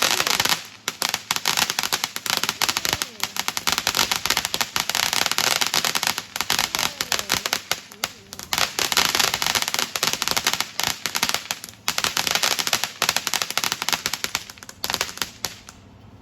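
Consumer firework crackling: a dense run of rapid pops over a hiss of sparks, with a few brief lulls, stopping just before the end.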